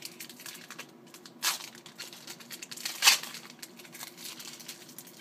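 Trading cards and their foil pack wrapper being handled: light rustling and crinkling, with two louder crinkles about one and a half and three seconds in.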